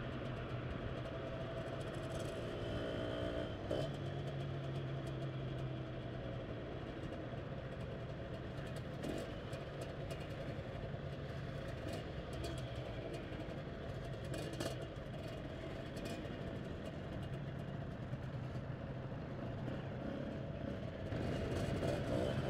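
Road traffic heard from a motorbike: a steady engine hum with cars and scooters running close by.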